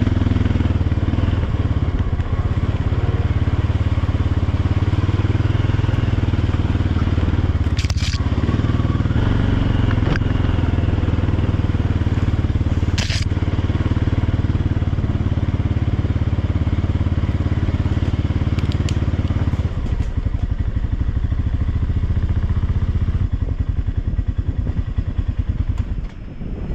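ATV engine running steadily under way, with a couple of sharp knocks about eight and thirteen seconds in. The engine eases off after about twenty seconds.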